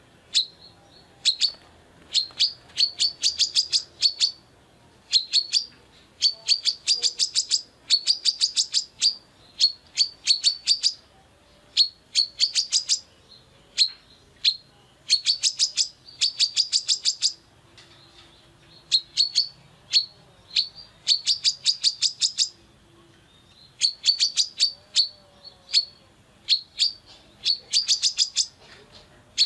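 Female brown-throated sunbird (kolibri kelapa) calling in full voice: rapid strings of sharp, high chips, each string lasting about a second, repeated with short pauses.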